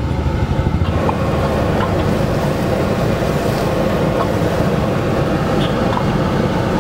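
Steady loud roar of a street-stall gas burner under a large steel wok, with a few light scrapes of a steel ladle stirring thick sauce.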